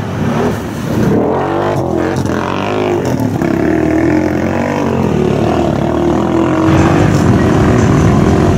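ATV engine revving hard as the quad drives through deep water, its pitch rising and falling over the first few seconds and then holding steady, with water splashing underneath.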